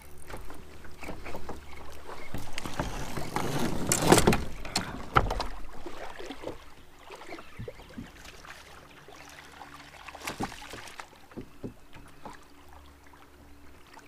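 Water splashing as a hooked smallmouth bass is landed at the side of a kayak, heaviest about three to five seconds in with two sharp splashes, then drips and light knocks.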